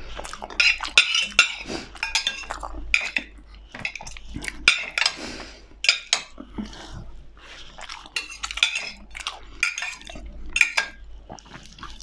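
Metal knife and fork clinking and scraping against a ceramic plate while food is cut, in irregular sharp clicks and short scrapes.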